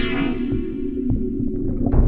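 Background music: a sustained synth-like chord fading out early on, over steady held low tones and a low pulse.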